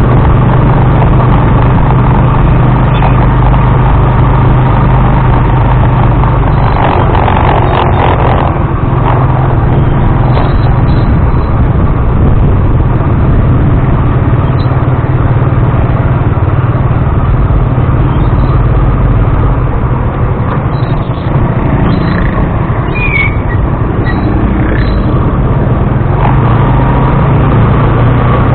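Motorized tricycle's engine running steadily while riding, with loud road and vibration noise on the action camera's microphone.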